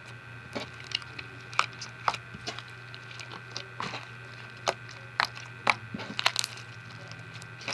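Slime mixed with fishbowl beads being squeezed and kneaded by hand, giving irregular sharp crackling clicks as the beads crunch, over a steady faint hum.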